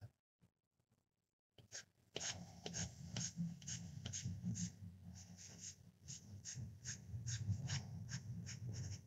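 Stylus strokes on a tablet's glass screen: quick repeated ticks and scratches, about three a second, starting about a second and a half in, over a low hum.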